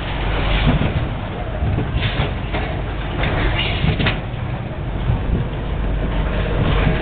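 Small roller coaster car rumbling and rattling along its steel track, with a few sharper clatters about two to four seconds in.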